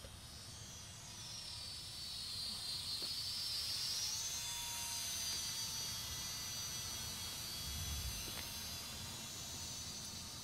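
Radio-controlled model biplane in flight: its motor and propeller make a high whine that dips, then rises and is loudest about four seconds in as the plane passes overhead, then holds steady and slowly fades.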